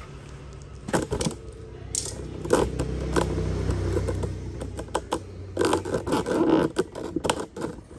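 Cardboard boxes and parcels being handled and shifted: irregular scraping and a series of sharp knocks, with a low rumble about halfway through and a busy cluster of knocks near the end.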